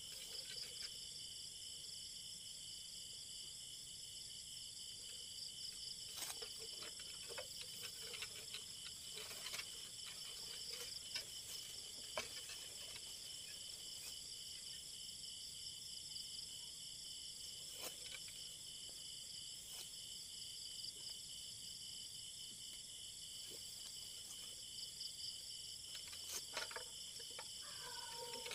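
Night insect chorus, a steady high-pitched trilling in several layers, with scattered brief rustles and knocks of leaves and twigs as a bamboo pole with a plastic bag on its tip is worked through the bush.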